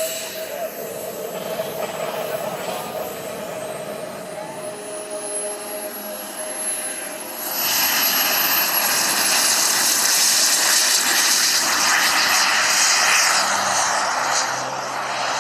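Model jet turbine engines, JetCat P-180 type, flying past: a high whine rising in pitch, then loud turbine rush from about halfway through that fades near the end.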